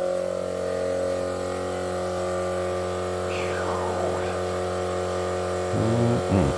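Twin-cylinder 12-volt air compressor running with a steady, even hum while inflating four tyres, driven at higher voltage from a lithium jump battery.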